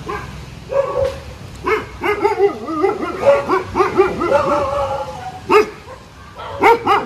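Dogs barking and yipping in a quick string of short calls, some overlapping, from about a second in; a lull after about five and a half seconds, then a last burst of barks near the end.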